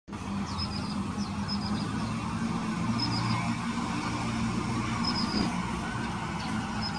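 Steady low rumble of road traffic with an engine hum, and short, high bird chirps every second or two.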